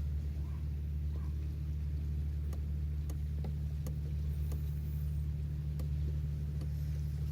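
A steady low mechanical hum, like an engine or motor running, with a few light clicks over it.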